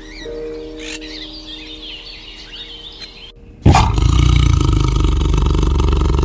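Small birds chirping over a held music chord. Then, from about three and a half seconds in, a tiger roars: a loud, low, rumbling call that starts suddenly and holds for about three seconds.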